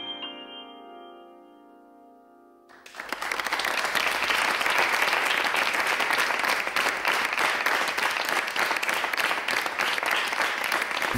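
The last chord of a Nord Stage keyboard's piano sound rings and dies away, then about three seconds in an audience breaks into steady applause that continues to the end.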